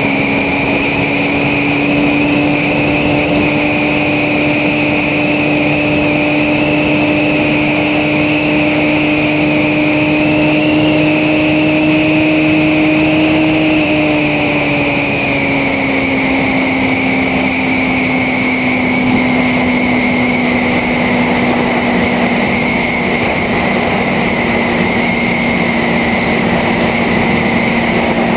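Motorcycle engine running steadily at road speed, with wind noise. Its pitch creeps up slightly, then drops a little about halfway through and holds there as the bike eases off.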